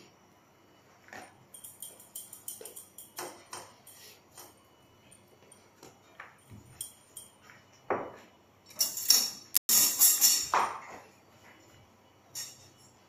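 Light metallic clinks and jingles from kitchen work at the counter, then a louder rattling clatter lasting about three seconds near the end.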